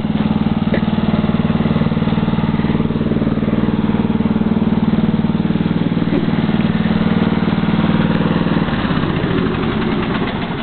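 Small engine of a red riding lawn mower running steadily at a constant speed. About nine seconds in its note changes and it begins to die down.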